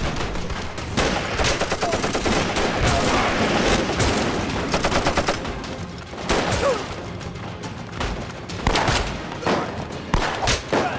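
Battle gunfire: a dense run of rifle and submachine-gun shots, including a rapid automatic burst about four to five seconds in.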